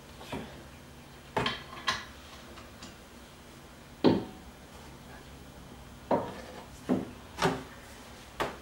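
Hand tools knocking and clanking on metal while a tight 21 mm brake caliper bracket bolt on a C7 Corvette is being broken loose with a wrench and then a longer bar: about eight sharp, irregular knocks.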